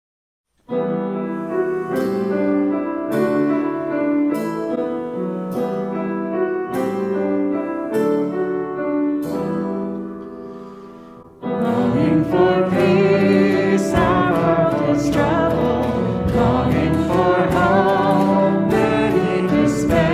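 Church worship band playing a hymn. About a second in, piano chords begin on a steady beat, a little faster than one a second. About eleven seconds in, the drum kit with cymbals, bass guitar and acoustic guitar come in and singing begins.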